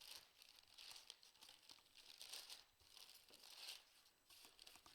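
Faint rustling and crinkling from handling, coming in a string of short soft bursts about once or twice a second.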